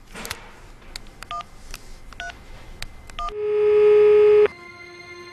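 Silver flip mobile phone being dialled: key clicks and three short keypad beeps, then about three seconds in a loud steady ringing tone on the line that breaks off after about a second, leaving a quieter tone.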